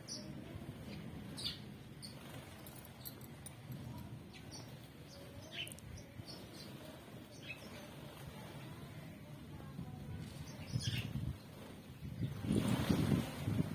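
Small birds chirping in short, scattered high chirps over a low background rumble, with a louder rustling noise near the end.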